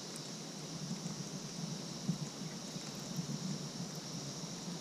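Steady outdoor ambience on a boat: a low, fluttering rumble with a constant high-pitched drone above it.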